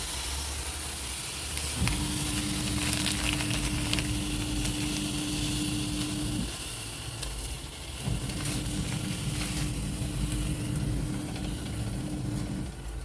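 Food sizzling in a hot pan on the stove, with a few light clicks of stirring. A steady low hum comes in about two seconds in, stops, and comes in again about eight seconds in.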